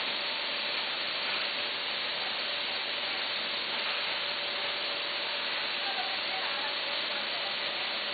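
Steady hiss-like noise from a running vertical form-fill-seal snack packaging machine, with a faint constant hum tone.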